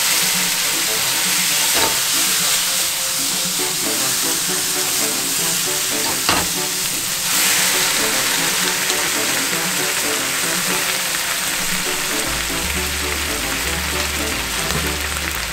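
Shiitake mushrooms and komatsuna sizzling hard in a frying pan with soy sauce. A little past halfway, pasta cooking water goes in and the sizzle softens to a bubbling simmer. Background music plays underneath, with a bass beat coming in near the end.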